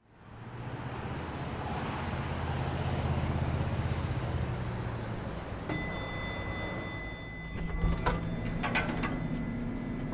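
Steady rushing background noise with a low hum, fading in at the start. About halfway through, a high steady tone joins, followed by a few sharp clicks near the end.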